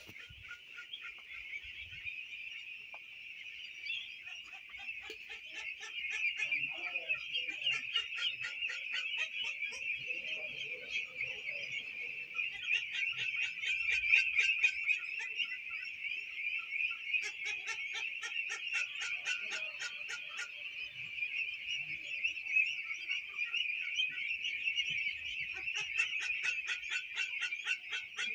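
A large flock of young domestic ducklings peeping together in a dense, continuous high-pitched chorus, growing louder about six seconds in.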